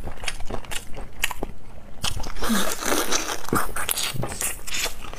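Close-miked eating sounds: wet chewing and lip-smacking clicks, with a denser wet stretch in the middle, as a cooked shrimp in sauce is bitten into and chewed.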